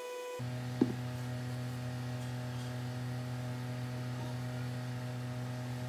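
Steady electric hum, likely a workshop machine's motor, that switches about half a second in to a lower, fuller hum, with a single click shortly after.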